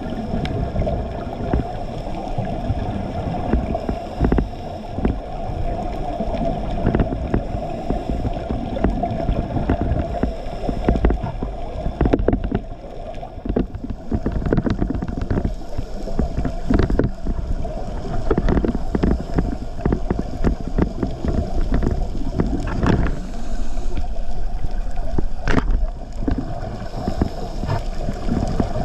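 Underwater sound picked up by a scuba diver's camera: a steady hum with repeated bursts of bubbling and crackle from the diver's regulator and exhaled bubbles.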